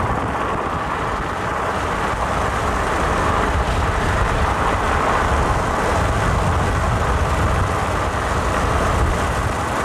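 Steady road and engine noise of a moving Subaru car, with no sudden events.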